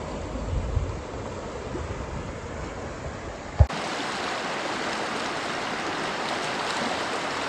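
Kern River water rushing steadily over and around granite boulders, with a low wind rumble on the microphone in the first half. A single sharp knock comes a little over three and a half seconds in, and after it the rushing is louder and hissier.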